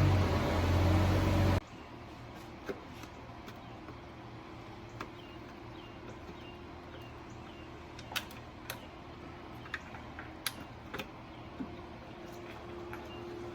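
A loud steady motor hum stops abruptly about one and a half seconds in. It is followed by a quieter stretch of scattered light metallic clicks and taps from hand tools working on the engine.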